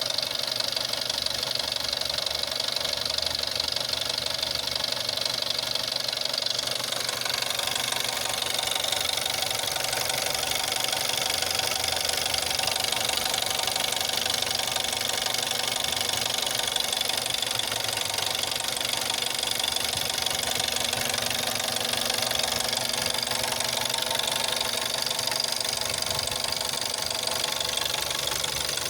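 Volkswagen 1.4 TSI (CAXA) petrol engine running cold, with a knocking, rattling noise that the owner takes for timing chain noise, though the chain has tested as not stretched. The noise shows only on a cold engine and goes away once it warms up. Its tone shifts slightly about seven seconds in.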